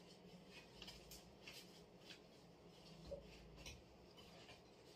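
Near silence with a few faint, brief rustles of cloth as a men's kimono belt is wrapped and tucked in.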